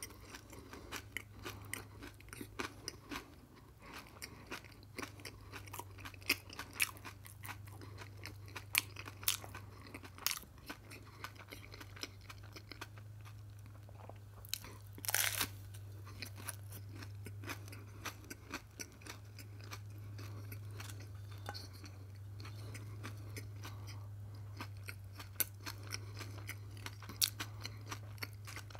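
Close-up chewing and crunching of an open-faced sandwich of dark seeded bread topped with cheese and sliced radish, with many small crisp clicks and a louder bite about halfway through. A steady low hum runs underneath.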